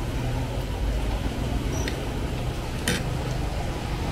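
Spoon and fork clinking and scraping on a ceramic plate, with a sharp clink about two seconds in and a louder one near the end, over a steady low rumble of street traffic.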